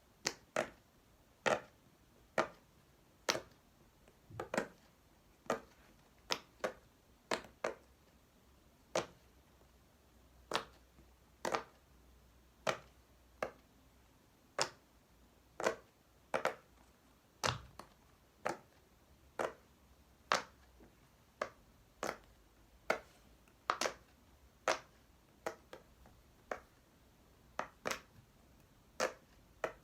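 A large silicone pop-it fidget toy having its bubbles pushed in one after another, each giving a short sharp pop, a little more than one a second at a steady pace.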